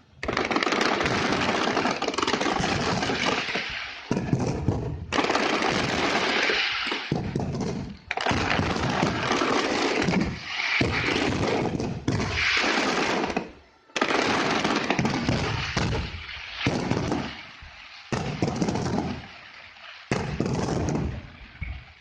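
Fireworks going off in rapid barrages of dense bangs and crackling, each lasting a few seconds, with brief lulls between them.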